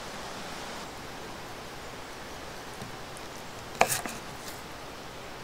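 Steady background hiss, with one sharp clink of a knife and fork against a wooden board as they cut into a steak a little before four seconds in, followed by a few faint ticks.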